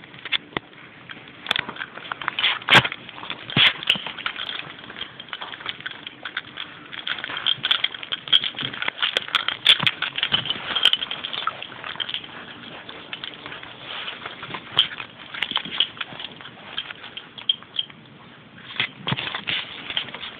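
Movement noise from a handheld phone carried about: irregular clicks, taps and crackles over a rough rustle.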